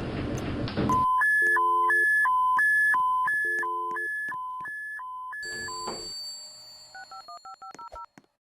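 Elevator emergency phone dialing out after its alarm button is pressed: a steady two-tone beep that alternates high and low about three times a second for about five seconds, then a quick run of short telephone dialing tones near the end.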